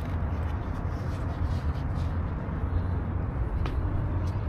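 Steady low outdoor rumble, such as distant city traffic or wind, with a single sharp click about three and a half seconds in.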